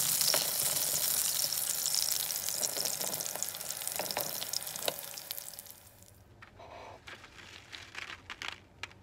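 Hot oil sizzling as dried red chilies and Sichuan peppercorns fry in a wok, with scattered pops and crackles, fading out about six seconds in. A few faint clicks and rustles follow near the end.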